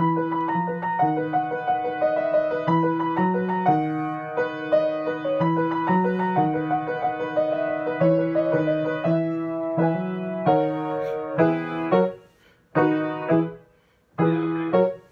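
Grand piano played, a continuous run of chords and melody for about twelve seconds, then a few short phrases broken by pauses near the end.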